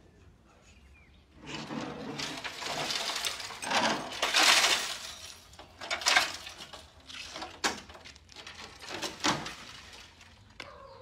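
Rusted sheet-metal car door being stripped and handled: a rasping metal scrape lasting a few seconds, then several separate knocks and clanks as the bare door shell is moved.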